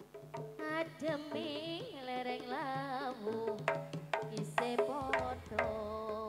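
Live jaranan gamelan music: a wavering, ornamented melody over sharp hand-drum strokes and sustained tones.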